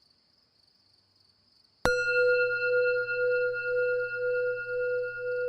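A meditation bell struck once about two seconds in, then ringing on with a slowly wavering, pulsing tone and several clear higher overtones.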